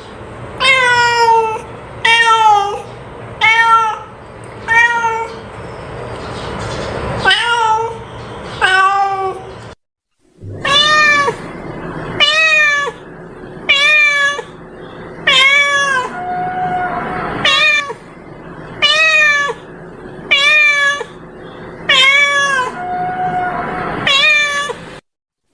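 Domestic cat meowing over and over, about one meow every second and a half, with a brief silent break about ten seconds in.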